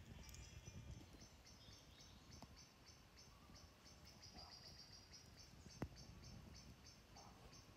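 Near silence: quiet evening campsite ambience with a faint high chirping repeated about three times a second, and one faint crackle from the campfire about six seconds in.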